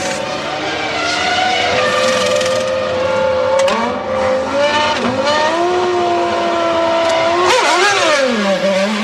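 Formula One car's V10 engine at high revs: it changes up twice, the pitch dropping at each shift, then the revs fall sharply with quick wavering blips near the end as the car brakes and changes down.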